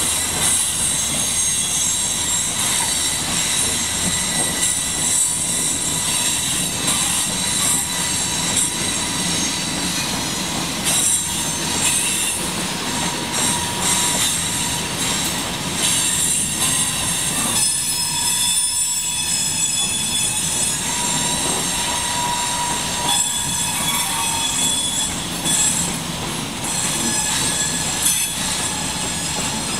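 Steel coal hopper cars of a CSX freight train rolling past on steel wheels, a continuous rumble with steady high-pitched wheel squeal against the rails and an occasional clack.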